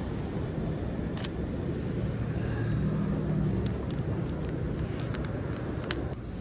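City street traffic on wet pavement: a steady low rumble with tyre hiss that swells as a vehicle passes about three seconds in. A few sharp clicks come through, one early and two near the end.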